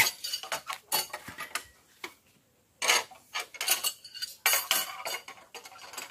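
Thin steel reinforcing bars clinking and scraping against each other as they are handled, in irregular sharp clanks with a short pause about two seconds in.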